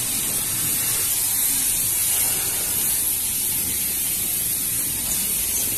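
A steady, even hiss with no rhythm or distinct events, bright and high.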